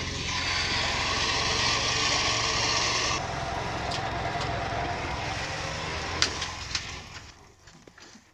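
A vehicle engine running with a steady low hum, a loud hiss over it for the first three seconds, and a few sharp knocks about six seconds in; the sound fades out near the end.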